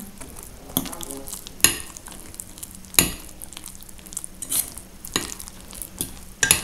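A utensil stirring a thick potato, carrot and flour dough in an enamel bowl: soft scraping and squelching, with sharp knocks against the side of the bowl about every second, at irregular intervals.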